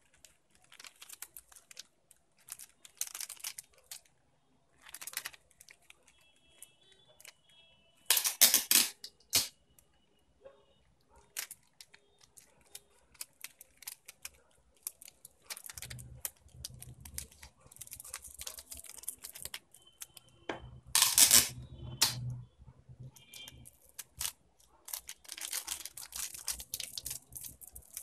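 Clear cellophane wrapper crinkling and crackling in irregular bursts as it is folded and gathered around a marshmallow on a stick, with louder crackling about eight seconds in and again about twenty-one seconds in.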